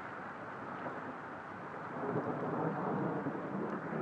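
Steady hiss of heavy rain falling on floodwater, with a louder low rumble rising about two seconds in.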